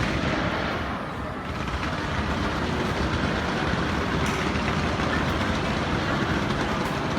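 Fireworks display: a continuous rumble and crackle, with a faint pop about four seconds in and another near the end.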